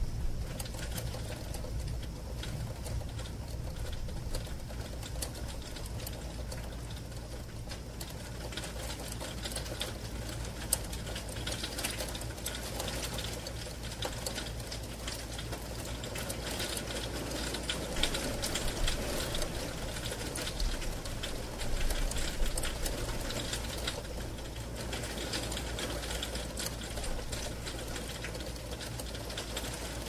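Steady rain hitting a bedroom window, heard from inside the room as a dense, fine ticking of drops on the glass near the storm's heaviest rain, with a steady low hum underneath.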